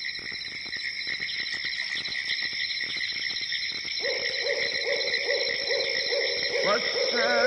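A steady high chirring, with a low hooting call repeating about twice a second from about four seconds in.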